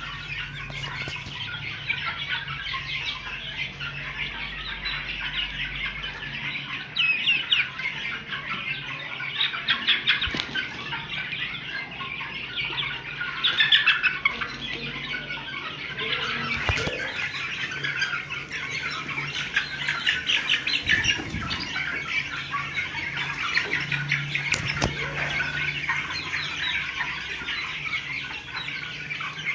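A flock of three-month-old desi chickens calling continuously, a dense chorus of chirps and squawks, over a steady low hum.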